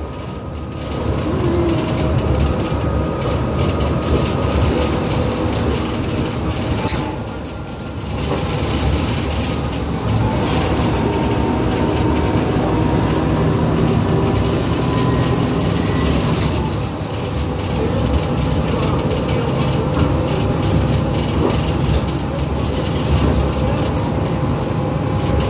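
Ride noise inside a moving diesel city bus, New World First Bus 6017: the engine and drivetrain run with a low rumble and a steady whine. The sound dips briefly about a second in and again around seven to eight seconds in.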